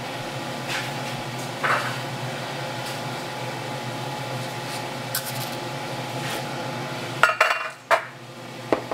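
Steady hum with a few light clicks, then a metal muffin tin clattering sharply as it is handled near the end.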